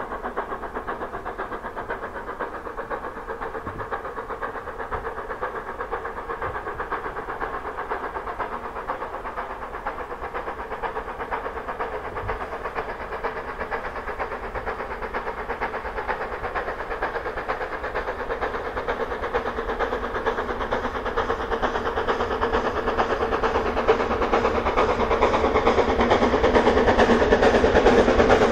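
GWR Castle-class four-cylinder 4-6-0 steam locomotive 7029 Clun Castle working under steam with a rapid exhaust beat as it hauls its train along. It grows steadily louder as it draws near and is loudest over the last several seconds.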